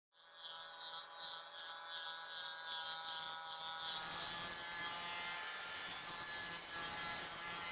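Electric grinder running steadily against a concrete surface, stripping it before crack sealing: a steady whine over a hiss of abrasion.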